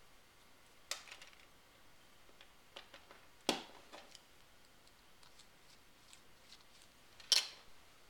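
A few sharp plastic clicks as LEGO pieces are handled and fitted together, with the loudest knock near the end as a LEGO plate is set down on a wooden table.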